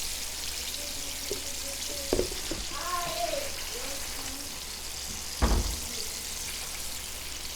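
Floured mahi frying in hot oil, a steady sizzle, with a sharp knock about two seconds in and a louder one about five and a half seconds in.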